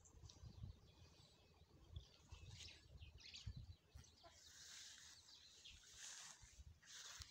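Faint outdoor ambience with birds chirping on and off, and low rumbling on the microphone.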